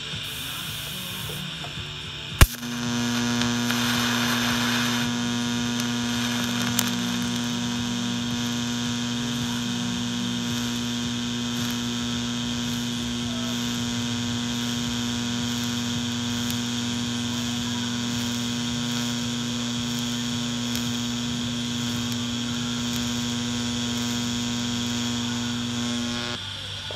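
Miller Syncrowave 200 TIG welding arc: a sharp crack as the arc strikes about two seconds in, then a steady buzzing hum for over twenty seconds that cuts off near the end when the arc is broken.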